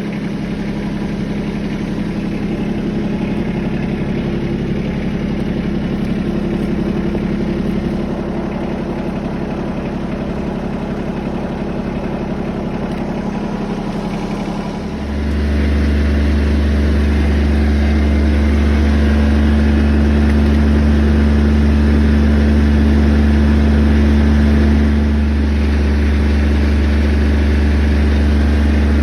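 Heavy equipment engine running steadily. About halfway in it gets louder and deeper and stays that way.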